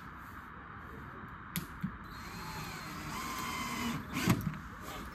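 Cordless drill driving a screw through the polycarbonate sheet into a wooden frame: a couple of clicks, then the motor whines for about two seconds and ends in a short loud rattle about four seconds in.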